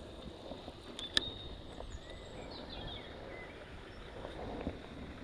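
Outdoor bankside ambience: a steady low background rumble with a few faint bird calls. One sharp click about a second in.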